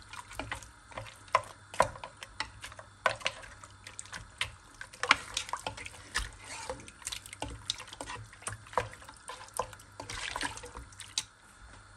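A utensil stirring and scraping a wet mixture in a cooking pan: irregular clicks and knocks against the pan, several a second, over a faint liquid sizzle.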